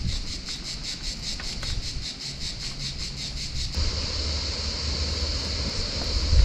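Cicadas singing in a rhythmic pulsing chorus, about five pulses a second. Partway through, the song turns into a steady hum, with wind rumbling on the microphone.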